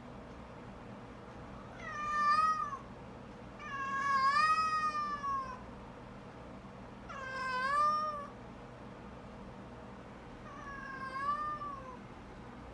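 An animal's long, whining calls, four of them about two to three seconds apart, each rising then falling in pitch; the second call is the longest, about two seconds.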